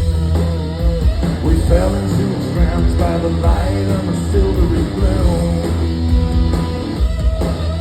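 Rock band playing live: electric guitar over a steady bass and drums.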